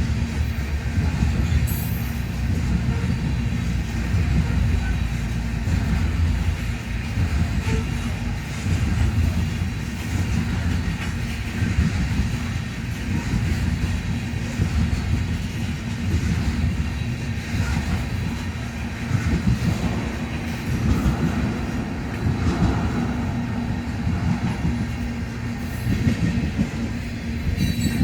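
A train passing close by: the steady, heavy low rumble of railcars rolling along the track, unbroken for the whole stretch.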